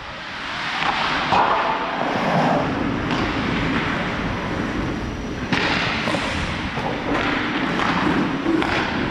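Ice skates scraping and carving across an ice rink, heard through a helmet-mounted action camera, with rushing air noise and a few sharp knocks from sticks or puck, one about five and a half seconds in.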